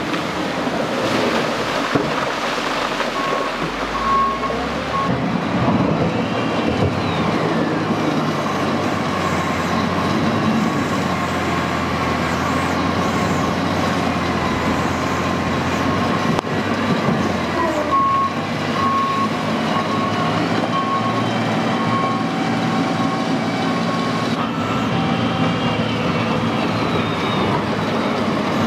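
Caterpillar 938F wheel loader's diesel engine running and revving up and down as it works. Its reversing alarm beeps briefly a few seconds in, and again for several seconds in the second half.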